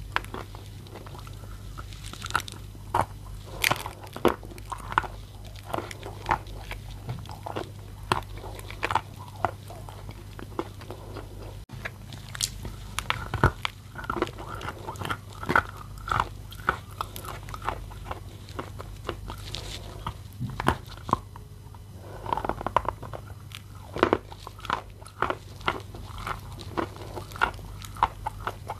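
Wet, crunching bites into a moistened lump of Bashkir chalk, close to the microphone: many sharp, irregular crunches with chewing between them, over a steady low hum.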